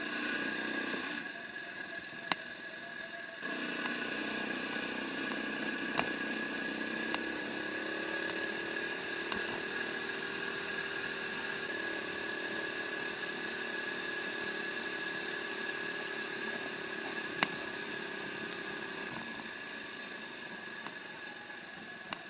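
Four-stroke 144F motorized-bicycle engine running under way. The throttle eases off about a second in and picks up again after a couple of seconds. The engine note climbs a little and holds steady, then eases off near the end. A few light clicks.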